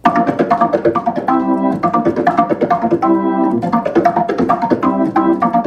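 Hammond organ playing a fast funk riff of short, clipped chord stabs in a quick, steady sixteenth-note rhythm, the two hands alternating on a G minor 7 chord voicing.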